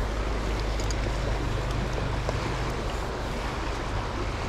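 Steady rush of a fast, shallow freestone stream running over riffles close by, with a low rumble underneath.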